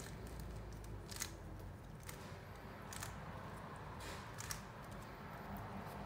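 Plastic 3x3 Rubik's-style cube being turned by hand: light clicks and clacks of its layers turning, with a few sharper clacks spaced a second or so apart, over a faint low hum.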